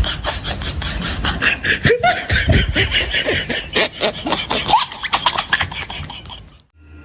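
Comedy sound effect: a fast, dense run of clicks and chattering with short squeaky swoops in pitch, cutting off abruptly near the end.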